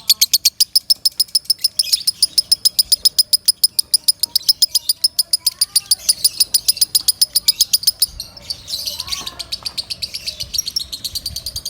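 Lovebird singing loudly in a long, rapid run of sharp, high chirps, about ten a second. About eight seconds in the run breaks briefly and goes on as a denser, less even chatter.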